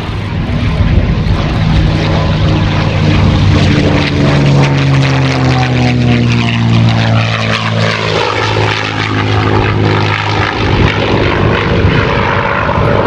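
P-51D Mustang's Packard-built Merlin V-12 engine and propeller running at display power in a loud flypast; the engine note drops in pitch about halfway through as the plane goes by, then carries on with a sweeping, phasing sound.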